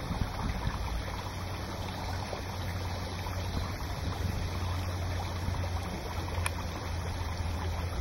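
Steady outdoor rushing noise with a low hum underneath; no bird calls stand out.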